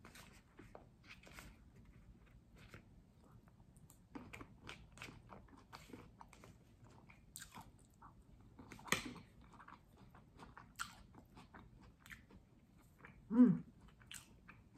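A person biting and chewing crunchy food, tortilla chips and raw salad vegetables, close to the microphone: a run of irregular crunches and crackles. Near the end, a brief louder pitched sound with a wavering pitch.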